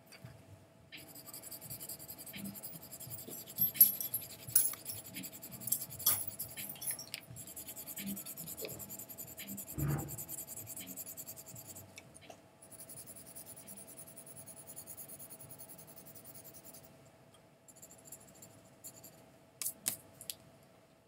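Red colored pencil scratching back and forth on paper, laying the base red over a brown-shaded patch, in stretches with short pauses. A few sharp ticks come in the middle and near the end, and one dull knock about halfway through.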